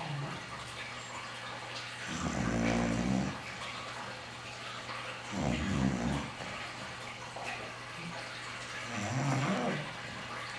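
English bulldog snoring hard in its sleep: three loud snores, each about a second long and roughly three and a half seconds apart, over a steady low hum.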